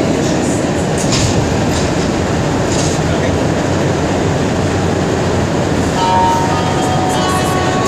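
Rubber-tyred Montreal metro train running into a station, heard from inside the car as a steady, loud rumble. About six seconds in, a few high steady whining tones join the rumble.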